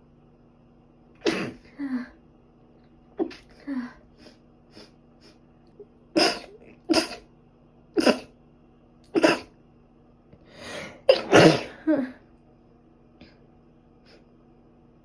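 A person sneezing again and again, about ten sharp sneezes in a row, the loudest cluster near the end, with a steady low hum underneath.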